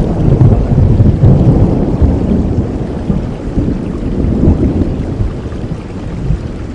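Steady rain with a long roll of thunder, the low rumble strongest in the first few seconds and slowly dying away.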